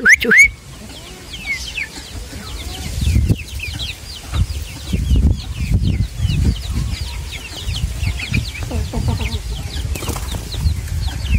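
Domestic chickens cheeping and clucking in many short calls, with repeated low flapping of wings from about three seconds in. A short whistle sounds at the very start.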